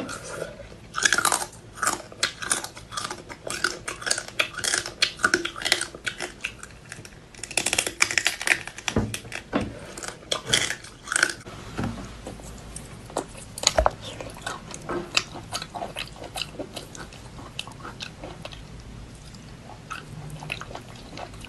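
A person chewing and biting food, a run of short sharp mouth clicks and crunches. They come thick and fast for the first half, then thin out after about eleven seconds.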